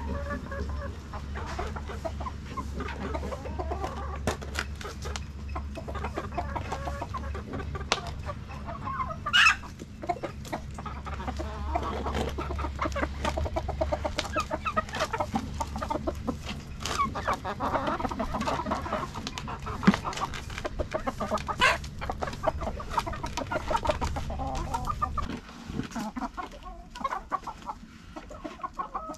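Native chickens clucking steadily while pecking around, with light clicking and scraping as feed is mixed by hand in a bucket. A sharp loud noise stands out about nine seconds in, and a low steady hum underneath stops near the end.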